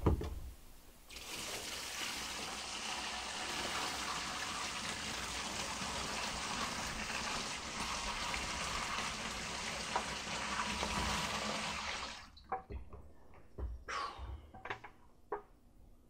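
Water poured from a 5-gallon bucket into the wash tub of a Panda XPB45 twin-tub washing machine: a steady splashing rush that lasts about eleven seconds and then stops. A thump comes just before the pour starts, and a few light knocks follow after it ends.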